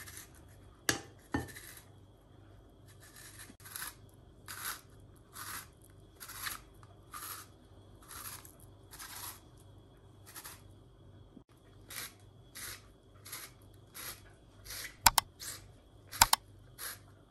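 Handheld hourglass spiralizer cutting a zucchini into spaghetti strands: a short scraping cut with each twist of the zucchini, in a steady rhythm of about three every two seconds. A few sharp knocks come near the start and near the end.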